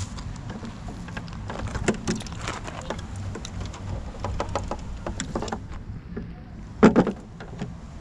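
Handling and rustling noise: scattered clicks and scuffs over a low rumble, with one louder knock about seven seconds in.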